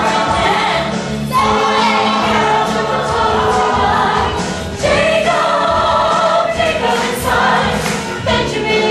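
A choir singing, several voices together.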